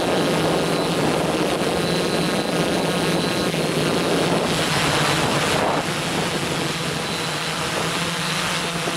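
Quadcopter's electric motors and propellers buzzing steadily, picked up by its own onboard camera, with wind rushing over the microphone. The sound drops slightly in level about six seconds in.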